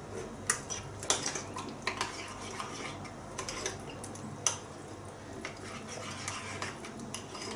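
Metal spoon stirring and scraping a thick creamy mixture in a ceramic bowl, with irregular light clinks against the bowl.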